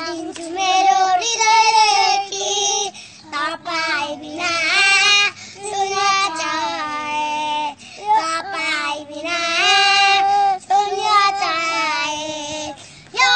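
Young boys singing a song with high children's voices, in short phrases with brief pauses between them.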